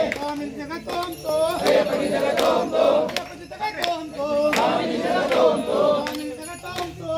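A group of men chanting an Ayyappa devotional chant together, in sung phrases, with sharp clicks scattered through.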